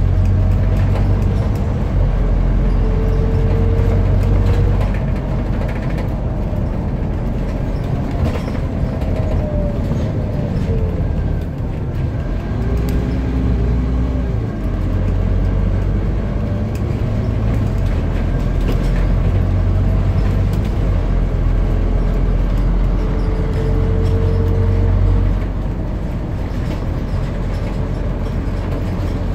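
Scania CN230UB Omnicity single-deck bus heard from inside the cabin while under way: its rear-mounted nine-litre five-cylinder diesel runs with a steady low rumble, and a drivetrain whine falls and then rises in pitch about ten seconds in as the bus slows and pulls away. Occasional light clicks sit over it.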